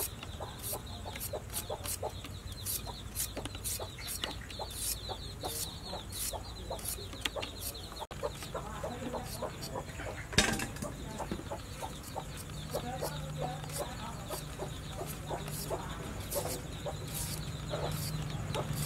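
Chickens clucking, with the short scraping strokes of a hand peeler taking the skin off a potato, about two a second. One sharp knock about halfway through.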